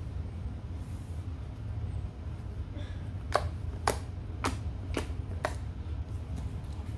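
Inflated blue jelly slime being stretched and pulled apart by hand, giving five sharp pops about half a second apart around the middle, the pops of trapped air bubbles breaking.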